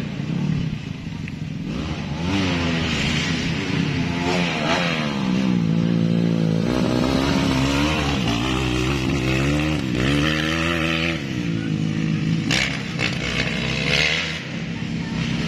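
Motocross bike engines revving hard, pitch climbing and dropping again and again as the bikes accelerate and shift on the dirt track, with a few sharp clacks near the end.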